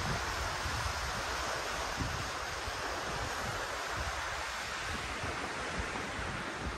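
Steady hiss of surf breaking on a sandy beach, with low gusts of wind buffeting the microphone.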